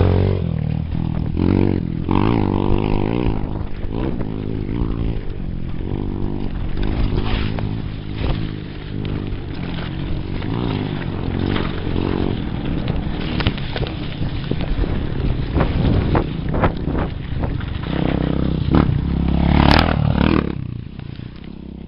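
Off-road motorcycle engine running close by and revving up and down, over the knocks and rattle of a mountain bike riding down a rough dirt trail.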